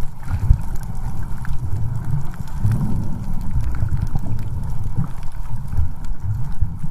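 Muffled, low rumbling water noise picked up by a camera held underwater, swelling unevenly, with scattered faint clicks and a faint steady tone.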